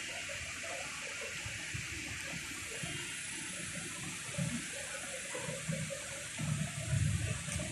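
Steady rushing hiss of water from the plaza's pool and fountains. Low rumbling bumps on the microphone build up near the end.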